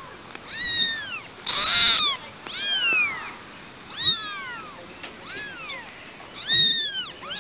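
Several young kittens mewing: about five high calls, each rising and then falling in pitch, with pauses between them; one near two seconds in is louder and rougher than the others.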